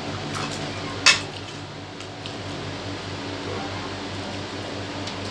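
Tableware clinking: one sharp clink about a second in, with a few fainter clicks, over a steady low hum.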